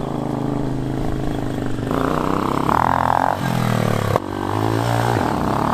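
Hawk 250 DLX motorcycle's single-cylinder engine pulling away at low speed, its pitch rising and falling with the throttle. A sharp click and a brief dip in the engine sound come about four seconds in.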